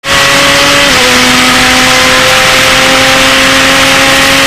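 Open-wheel race car's engine heard from an onboard camera, running at a steady pitch with a slight drop about a second in, over a loud rushing noise.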